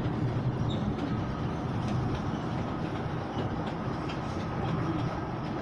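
Open-sided passenger car of the Kurobe Gorge Railway rolling along the narrow-gauge track, a steady low rumble of wheels on rail, with a faint high steady whine coming in after the first second or so.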